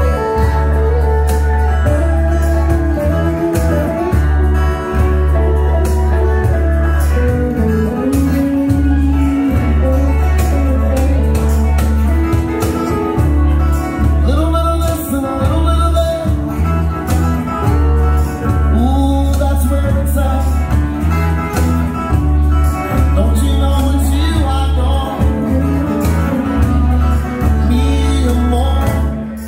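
Live country band playing a song, with electric and acoustic guitars, fiddle and hand drums over a steady bass line.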